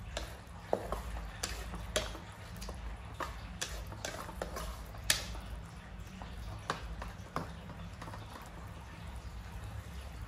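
Wooden spatula knocking and scraping against a metal wok while stirring wet food, irregular taps with a few sharper knocks; the taps thin out about eight seconds in. A steady low hum lies beneath.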